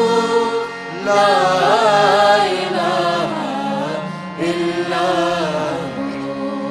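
A male voice singing a devotional Urdu naat in long, wavering, ornamented phrases on "Allah", with short breaks between phrases, over a steady harmonium drone.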